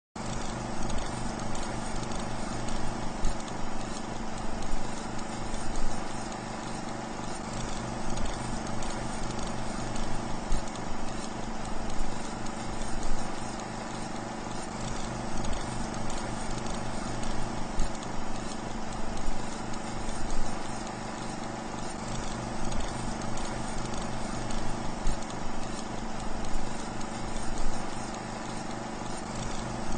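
A raccoon eating from cat food bowls: irregular clicks, crunches and light knocks of chewing and of the bowls being handled, over a steady electrical hum.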